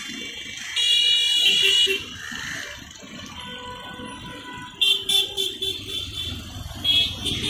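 Road traffic with vehicle horns honking: one long honk about a second in, then a run of short toots around five seconds and another near the end, over the low rumble of passing vehicles.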